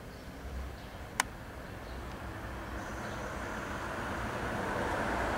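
Road traffic noise growing steadily louder, with one sharp click about a second in.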